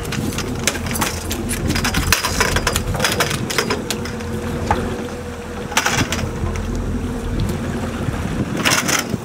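A fish flopping on a fiberglass boat deck: quick slaps and knocks for the first few seconds, then two louder scuffs near the middle and end as it is handled. Under it the boat's engine runs steadily with a low rumble.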